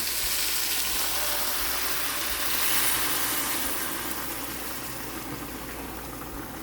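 Boiling water poured into a pot of sautéed chicken and potatoes, a steady gushing pour that eases off toward the end.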